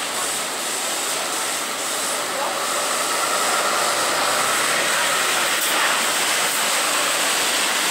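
Marcopolo Torino city bus turning and pulling past close by on a wet street: engine running under tyres hissing on the wet road, growing louder about three seconds in.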